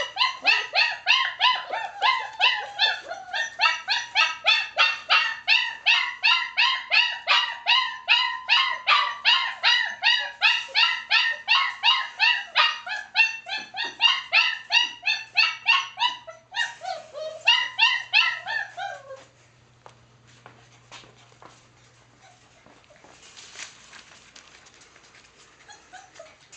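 Four-week-old German Shepherd puppy yelping and whining in a fast, even series of high, falling cries, about four a second. The cries stop about two-thirds of the way through, leaving only faint clicks.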